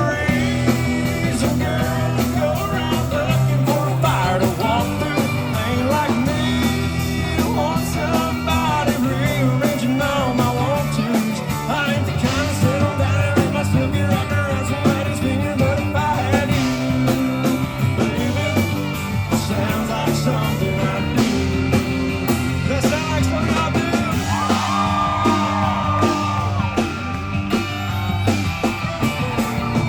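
Live country band playing a loud, continuous song, with a held, bending lead note about three quarters of the way through.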